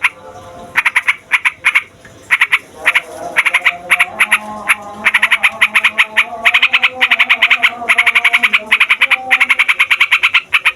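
Sooty-headed bulbul (trucukan) in full, chatty song, a long rolling run: rapid strings of short sharp notes, many a second. The runs become longer and almost continuous from about halfway through.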